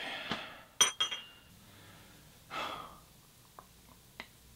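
A ceramic espresso cup gives a sharp clink with a brief ringing about a second in. A short breath comes about halfway through, then a few faint small clicks.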